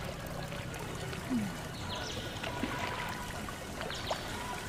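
Seawater lapping and trickling around people wading chest-deep, close to the microphone, with small splashes.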